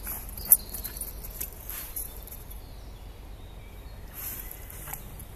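Steps on a path covered in dry leaf litter, crackling and rustling with scattered small clicks, with a sharp loud click about half a second in.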